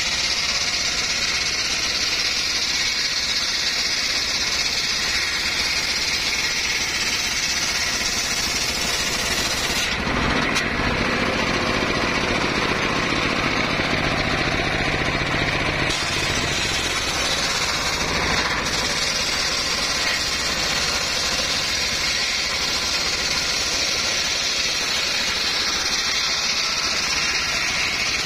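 Circular sawmill blade ripping a teak plank lengthwise, driven by a stationary single-cylinder diesel engine that runs steadily and loudly under the cutting load.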